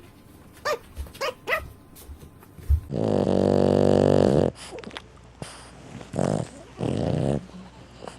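A sleeping dog vocalising: a few short high squeaks, then a long, low, growl-like sound about three seconds in, and two shorter ones a couple of seconds later.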